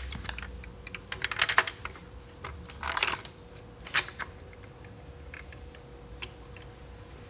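Scattered light clicks and rattles, mostly in the first four seconds, from the plastic upper intake plenum of a Chrysler 2.7 V6 being handled, its bolts knocking in their holes as they are pulled back.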